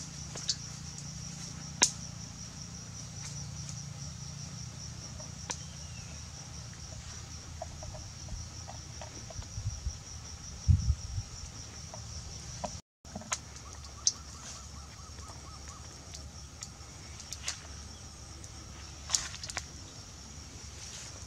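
Steady, high, slightly pulsing insect chirring from the surrounding grass and trees, with scattered light clicks and knocks from a metal tray and the fish being handled.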